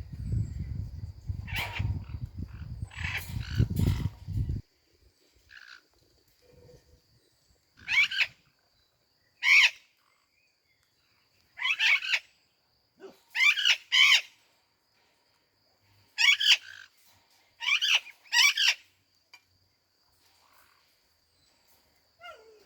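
Sun conure giving short, loud chirping calls, about nine of them spread apart, several in quick pairs. For the first few seconds a low rumbling noise runs under it, then stops.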